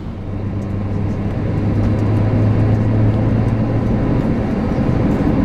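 Airbus A321 cabin noise with its jet engines running as the plane taxis: a steady low rumble that grows gradually louder, with a low hum that fades out about two thirds of the way through.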